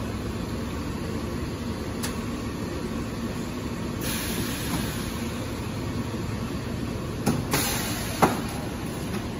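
High-frequency blister welding machine with a rotary turntable running: a steady low hum, a burst of air hiss about four seconds in, then two sharp clunks with another short hiss near the end as the press and table cycle.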